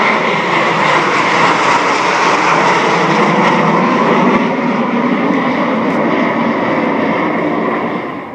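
Formation of Canadair CT-114 Tutor jets passing overhead, their engines making a loud, steady jet noise that fades about eight seconds in as they fly away.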